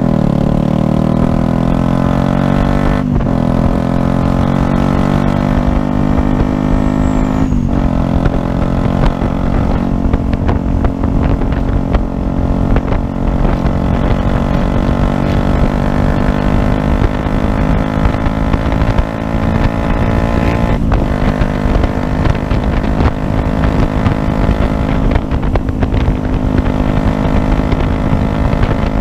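Yamaha YZF-R125's 125 cc single-cylinder four-stroke engine pulling hard as the bike accelerates up through the gears. The engine note climbs, with brief breaks for upshifts about three seconds in, near eight seconds in and around twenty-one seconds in, and the pitch drops after each shift.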